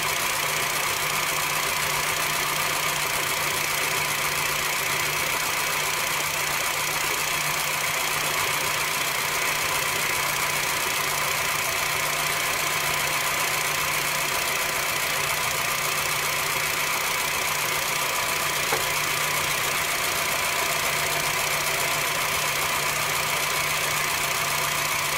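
2013 Honda Fit's four-cylinder engine idling steadily, warming up so that air bleeds out of the freshly refilled cooling system.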